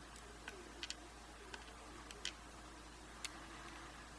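Faint, scattered small metallic clicks and ticks, about eight in four seconds, as the pin stack is taken out of a Yale 850 euro cylinder lock while it is being gutted.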